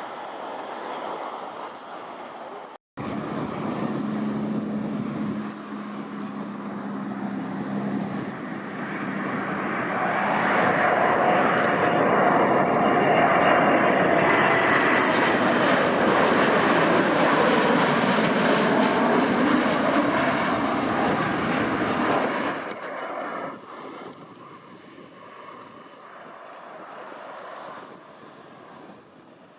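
Jet airliner flying past: engine noise swells to a loud peak over several seconds, with a high whine that slides down in pitch as it passes, then drops away quickly.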